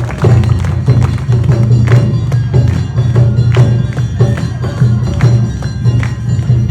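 Awa Odori festival band music: drums beating a steady rhythm with sharp metallic percussion strikes on the beat.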